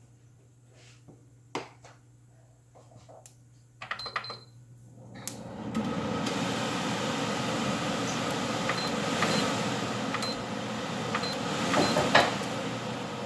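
Mustard seeds, fenugreek and a dried chilli in a little hot oil: quiet at first with a few clicks, then from about five seconds in a steady sizzle with sharp pops as the mustard seeds begin to burst. This is the sign that the oil is hot enough for the tempering.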